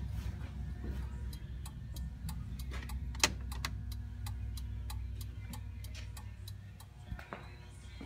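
Turn-signal flasher relay under the dash of a 1999 Jeep Wrangler TJ clicking at a steady pace of about three clicks a second, a replacement flasher fitted to cure hyper flash with the new fender turn signals. A steady low hum runs underneath.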